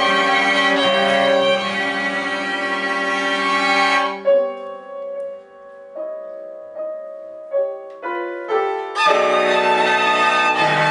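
Piano trio of violin, cello and piano playing a classical fantasia on a Ukrainian folk melody. The full trio plays for about four seconds, then the strings drop out and the piano plays a few separate notes that ring and fade, before violin and cello come back in near the end.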